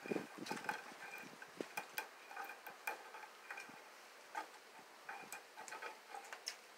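A cat's claws scratching and raking a wooden porch post, heard as irregular, sharp scratchy clicks.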